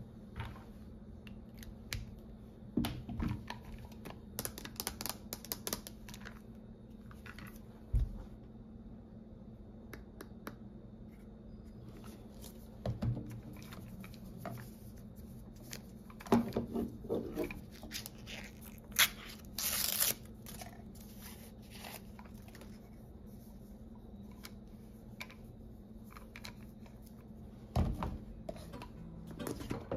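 Cardboard packaging of a lint roller being torn open and handled on a marble tabletop: scattered taps and rustles of paper, with one longer tearing sound about two-thirds of the way through.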